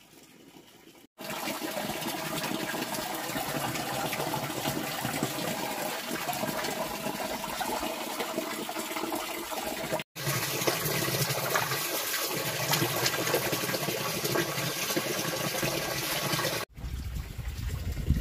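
Water running steadily, in stretches broken by abrupt cuts about a second in, around ten seconds in and near the end.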